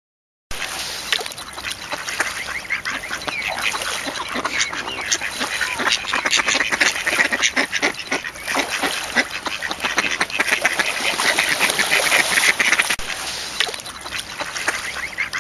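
Many mallards quacking at once in a busy, continuous chatter, starting after a brief silence.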